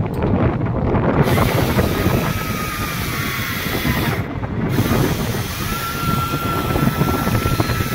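Wind buffeting the microphone over a boat engine's running noise on a fishing boat at sea. A thin high whine comes in about two seconds in, dips, and returns steady from about six seconds on.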